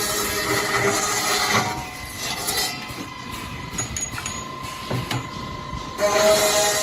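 High-speed steel circular saw blade cutting metal on a cutting machine: a loud, steady screech with several held tones. About two seconds in it drops to a quieter run with a steady high tone and a few clicks, and the loud cutting sound returns near the end.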